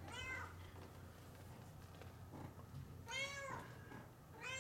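Tabby cat meowing: three short meows, the first fainter than the other two.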